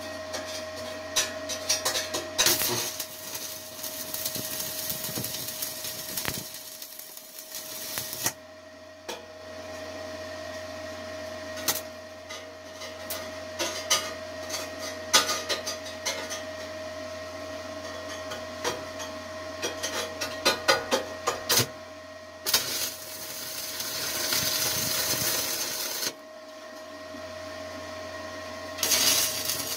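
Stick-welding arc from a Forney 100ST with 6013 rods on 1/8" steel plate, crackling and hissing in runs a few seconds long, twice, and starting again at the very end. Scattered ticks and taps come between the runs, over a steady hum.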